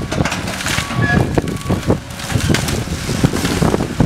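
Cat hydraulic excavator tearing into a pile of demolition debris: its diesel engine runs under load while the bucket crunches and cracks splintered wooden timbers and rubble, giving many sharp snaps and knocks over a low rumble.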